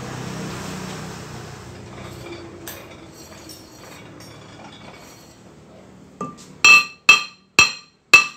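Steel hammer tapping a vented cast-iron brake rotor held in a lathe's four-jaw chuck, to true it up while centering it. A light tap is followed by four sharp, ringing blows about half a second apart near the end. The lathe's low running hum dies away in the first two seconds.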